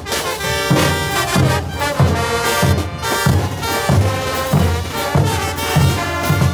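Bolivian brass band playing a morenada: trumpets and trombones carrying the tune over a steady bass drum beat.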